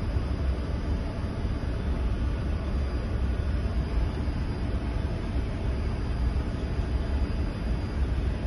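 Steady low rumble of running machinery in a ship's engine room, even and unbroken, with faint steady tones over it.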